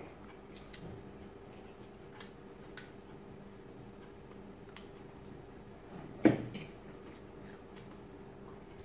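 Light clicks and clinks of a fork against a ceramic salad bowl, with one louder knock about six seconds in, over a faint steady hum.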